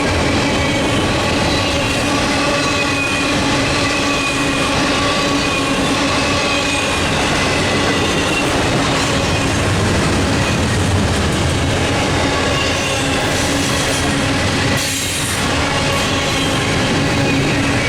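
Intermodal freight train rolling past close by: a steady rumble of wheels on rail with faint, drawn-out squealing tones from the wheels.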